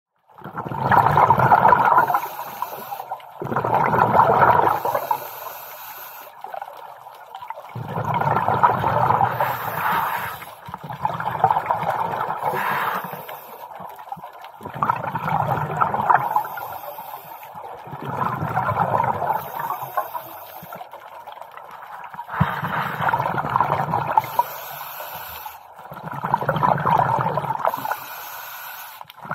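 A scuba diver breathing through a regulator, heard through the camera's underwater housing: exhaled bubbles rush and gurgle out in long bursts about every three to four seconds, with quieter gaps between.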